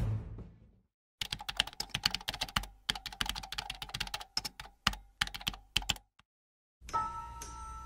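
Rapid computer-keyboard typing clicks, a sound effect for on-screen text being typed out, lasting about five seconds. Music fades out in the first second, and a steady sound with two held tones comes in near the end.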